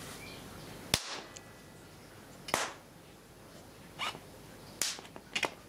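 Capacitor bank being discharged into circuit-board parts and traces: five sharp snapping cracks of the arcing discharge, the loudest about a second in.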